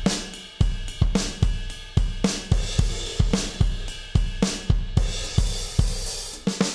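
Electronic drum beat played from a MIDI keyboard: deep, booming 808-style kicks about every 0.4 s under hi-hats and cymbals. A hiss builds from about five seconds in, then a quick flurry of hits comes right at the end.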